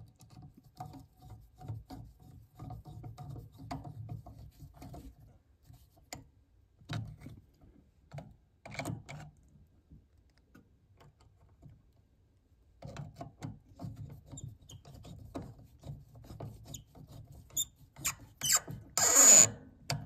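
Intermittent small clicks, taps and scrapes of hand work on an air handler's circuit breaker and its wiring, with a louder, hissy scrape lasting about half a second near the end.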